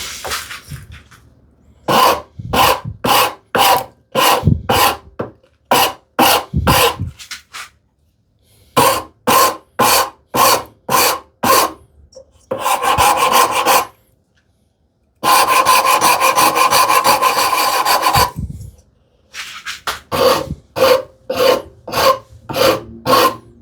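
A hand file rasping across the edge of a wooden strip to round its corner over to a radius. It goes in short back-and-forth strokes, about two a second, with two longer continuous passes partway through.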